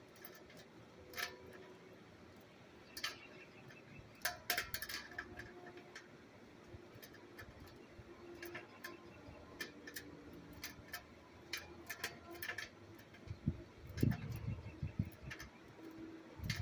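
Scattered metallic clicks and clinks of a hand wrench working bolts loose on an air compressor, with a heavier low thump and rumble about fourteen seconds in.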